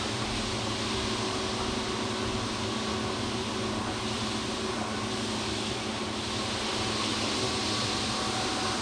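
A steady mechanical hum with a broad hiss over it, holding an even level throughout.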